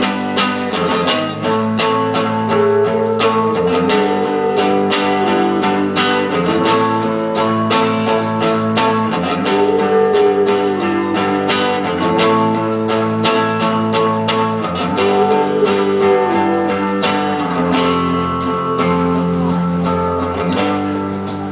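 Band playing an instrumental guitar passage with no singing: steady strummed guitar chords over bass, with a melodic line that bends up and down every few seconds.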